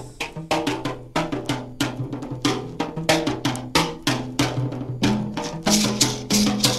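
Cumbia music: sharp percussion strikes at a quick, steady beat over a bass line.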